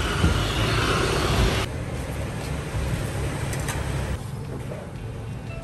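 Street traffic with a motorbike passing, its engine and tyre noise filling the first second and a half, then cutting abruptly to a quieter background with a low steady hum.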